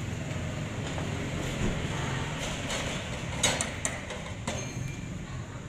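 Glass door of a heater booth being handled: a run of sharp clicks and knocks from the handle and latch midway through, the loudest about three and a half seconds in, over a steady low noise.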